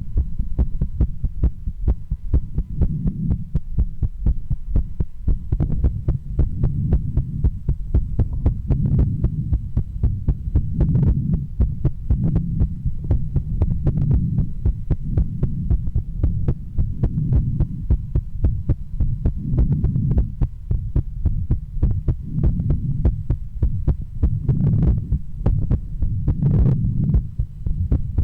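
A woman's heartbeat heard through a stethoscope: a steady run of close, thudding beats. Under it a low rumble swells and fades every few seconds.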